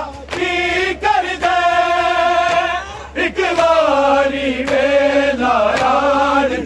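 A group of men's voices chanting a Punjabi noha together, unaccompanied, in long held notes that waver and glide. There is a short break about three seconds in.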